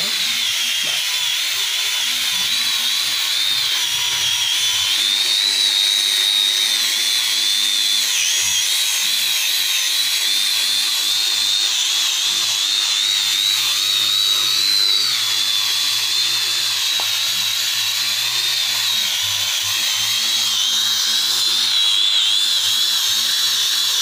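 Pneumatic orbital sander running steadily over a bare natural-wood slab tabletop, giving a high, slightly wavering whine with a constant hiss.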